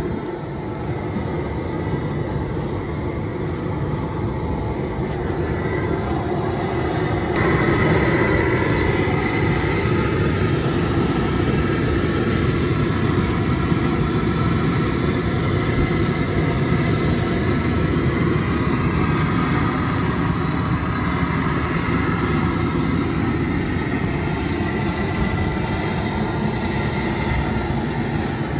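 Propane burner of a LoCo crawfish cooker running under the boil pot, a steady rushing noise that gets louder about seven seconds in.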